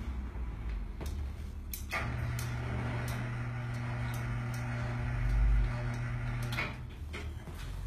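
A small electric motor runs with a steady hum for about four and a half seconds, switching on with a click about two seconds in and off near the end. A low bump comes about five and a half seconds in.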